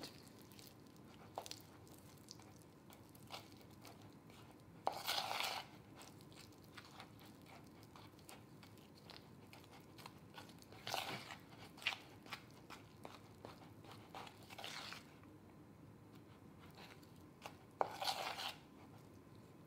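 A spoon stirring and scraping thick powdered-sugar icing around a bowl, faint, with louder scraping strokes about five, eleven, fifteen and eighteen seconds in. The icing is still too dense to pipe and is being worked thinner.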